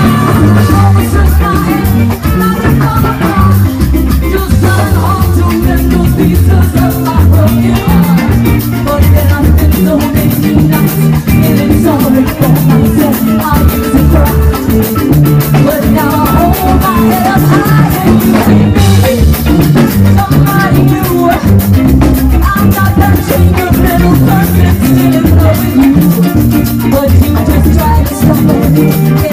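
Live salsa band playing loud and steady, with congas, saxophone, guitar, keyboard and drum kit over a repeating bass line.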